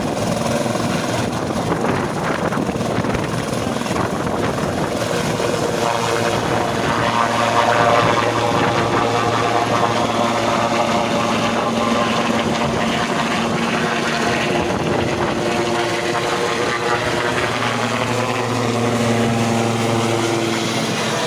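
An aircraft's engine and propeller or rotor running close by: a steady droning hum with several held tones, a little louder about eight seconds in.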